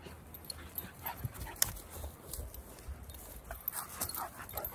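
A young dog running about on grass with a toy in its mouth: its breathing and movement, with scattered short clicks and rustles.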